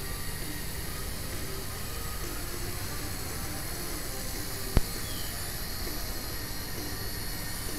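Blade mQX micro quadcopter flying low, its propellers giving a steady whir under a steady hiss and low rumble. A single sharp click about five seconds in.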